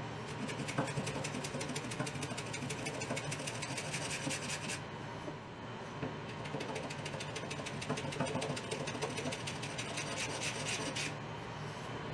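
A block plane shaving leftover CNC holding tabs off the edges of Baltic birch plywood parts: a rasping, scraping run of strokes. It comes in two stretches, with a short pause about five seconds in, and dies away about eleven seconds in.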